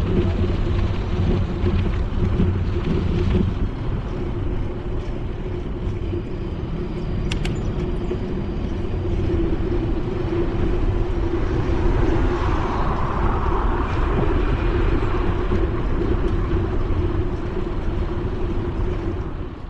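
Steady wind and rolling noise on a bicycle-mounted GoPro while riding a bike path, with car traffic on the avenue alongside; a car passes more loudly a little past the middle, and there is a single sharp click about seven seconds in.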